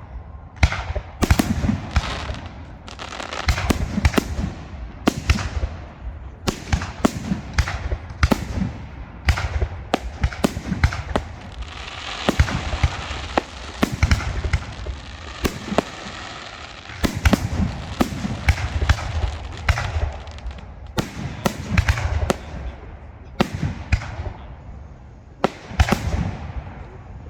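Fireworks display: aerial shells bursting one after another in quick succession throughout. About halfway through, a dense wash of crackling runs for several seconds amid the bangs.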